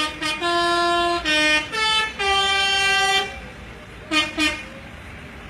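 Bus 'telolet' musical air horn playing a short tune: a couple of quick toots, then longer notes stepping up and down in pitch for about three seconds, and two short toots about four seconds in.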